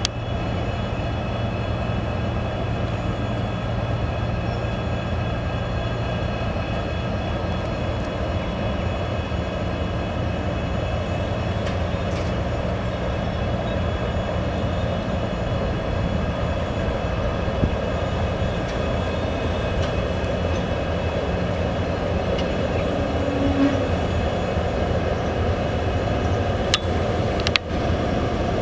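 Multi-section VL11.8 DC electric locomotive hauling a freight train and passing slowly, giving a loud, steady hum with several held high tones. Two sharp clicks come near the end.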